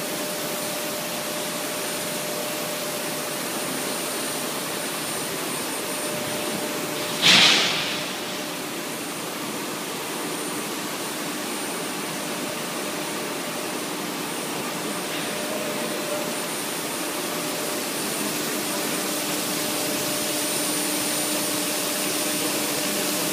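Steady hiss of quench water spraying onto a red-hot steel shaft turning through an induction-hardening coil, with a few steady tones beneath it. A sudden loud burst of hiss comes about seven seconds in and dies away within half a second.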